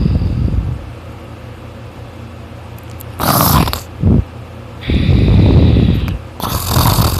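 A man snoring loudly in deep sleep: low rumbling snores alternating with short hissing breaths.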